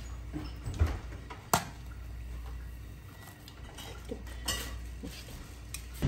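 Kitchen utensils and cookware clinking: a few sharp separate clinks, the sharpest about a second and a half in, over a low steady hum.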